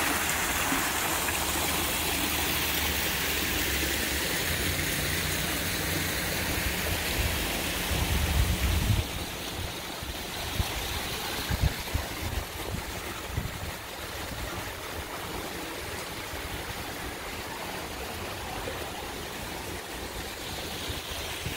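A steady rushing noise that thins a little about nine seconds in, with low rumbles and scattered knocks around then.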